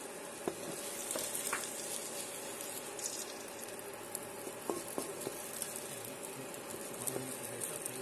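An egg frying in oil in a honeycomb-pattern stainless non-stick wok: a steady sizzle with scattered small crackles and pops.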